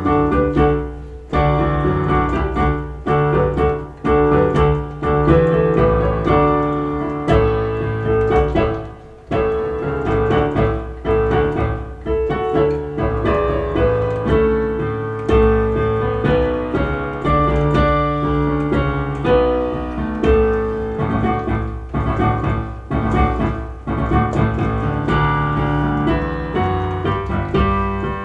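Solo piano music: a flowing run of notes over held chords.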